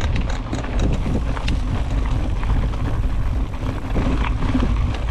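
Mountain bike rolling over a rough forest trail, its tyres rumbling and the bike rattling with frequent sharp knocks, while wind buffets the camera microphone.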